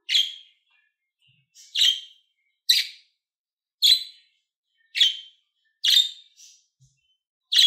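Budgerigar giving short, sharp chirps, about one a second, seven in all.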